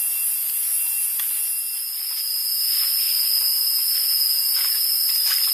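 Steady, high-pitched buzzing of forest insects, with a second, lower whine that swells about two seconds in and holds.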